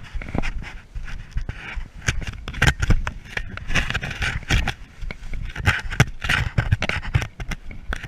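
Footsteps scuffing and crunching through forest litter and brush, irregular scrapes and thumps, with a dog panting.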